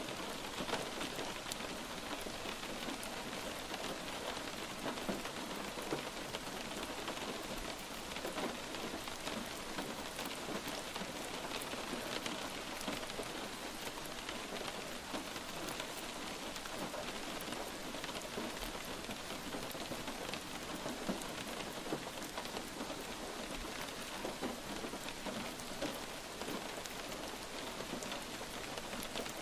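Light rain falling steadily on a surface: an even hiss thick with fine, close-set drop ticks.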